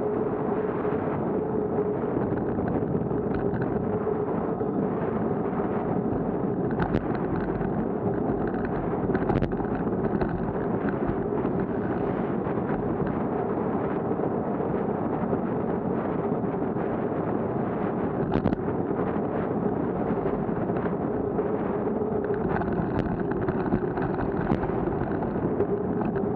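Steady wind rush and road noise on a moving action camera's microphone, with a held hum underneath and a few sharp knocks.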